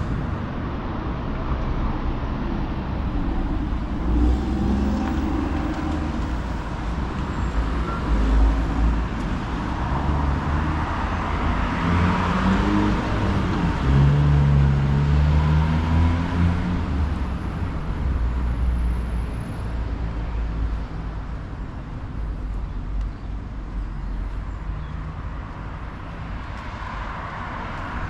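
Road traffic: cars driving past with engine hum and tyre noise. One passes close, swelling and fading about twelve seconds in, over a steady low rumble.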